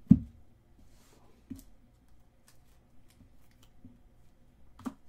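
Trading cards being handled and sorted on a tabletop: a dull knock just at the start as cards are set down, a smaller knock about a second and a half in, faint sliding and ticking of the cards, and another knock near the end.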